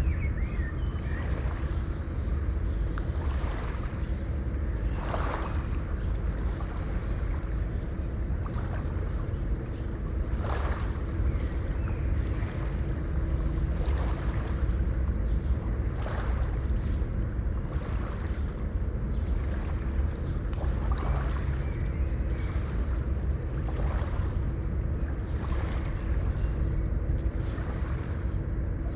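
River water flowing with a steady low rush. Small splashes or laps of water come every second or two, over a faint steady hum.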